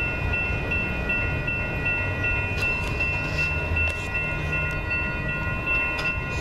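Railroad grade-crossing bell ringing steadily at about two to three strokes a second, over a low steady rumble.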